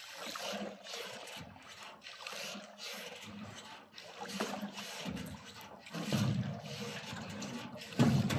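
Water splashing and trickling around a small rowboat as it is rowed, with a swell of sound at each oar stroke every second or two. The loudest stroke comes near the end.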